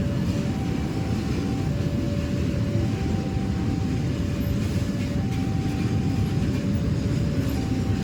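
A freight train of Pertamina tank wagons passing close by, a steady low rumble of the train on the rails. Over it a two-tone warning alarm alternates between a higher and a lower tone about once a second.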